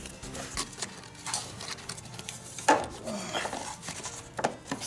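Clicks and knocks of an air filter element being handled and pressed into the black air cleaner housing of a Honda HRX217 mower's engine. The sharpest knock comes about two and a half seconds in.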